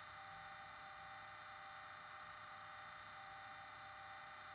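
Bachmann Class 25 model locomotive's DCC sound decoder playing the SWD U-Drive diesel engine idle, faint and steady, through a small double iPhone speaker.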